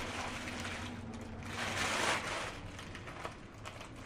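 Paper packaging rustling and crinkling as a pair of heeled sandals is handled and lifted out of its shoe box, loudest over the first two seconds and then tapering off.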